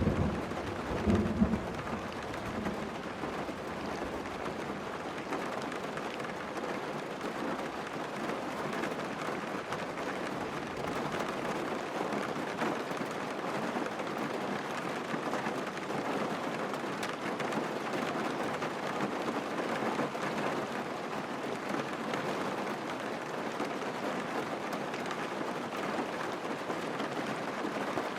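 Steady heavy rain pattering on a car, heard from inside the cabin, with a brief low rumble about a second in.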